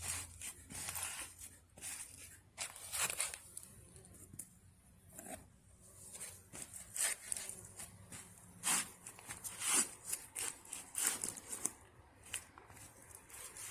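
Irregular close-up rustling, scraping and clicking from hands handling things, with short sharp scratchy sounds scattered throughout.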